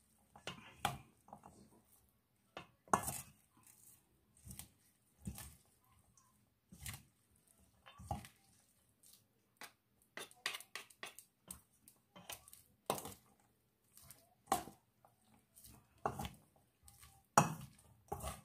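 Wooden spatula and metal utensil mixing a bean-sprout and vegetable fritter batter in a stainless steel bowl. The utensils scrape and knock against the bowl in short, irregular strokes, about one every second.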